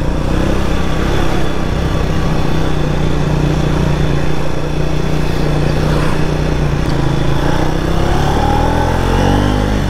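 Triumph Speed 400's 398 cc single-cylinder engine running steadily under way, with wind and road noise. Its pitch climbs near the end as the bike accelerates.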